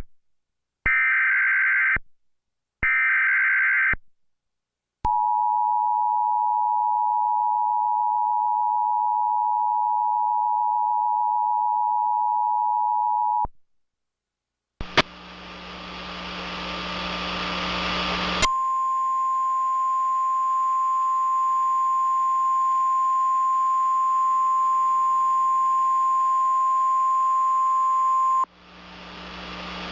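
Emergency Alert System broadcast: the last bursts of the buzzy digital SAME header, about a second each, then the two-tone EAS attention signal held steady for about eight seconds. After a short pause, radio static with a low hum comes in, and a single steady warning tone sounds over it for about ten seconds before cutting off near the end.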